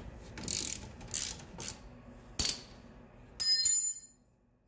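A ratchet wrench clicks in a few short strokes as it spins a nut off the bolt holding the tie-rod uniball to the hub spindle. Near the end comes a bright metallic clink that rings briefly, the loudest sound.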